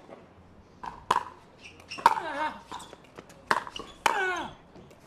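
Pickleball paddles striking the ball in a singles rally: a series of sharp, ringing pocks about every half second to second. Two short falling squeals come right after two of the hits.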